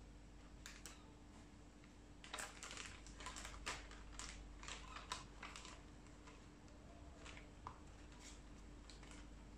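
Plastic zip-top bags crinkling and rustling as they are handled, with a quick cluster of crisp crackles a couple of seconds in and a few scattered ones later.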